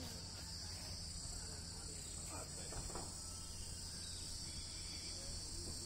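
Steady, high-pitched insect chorus, an unbroken shrill drone at two pitches.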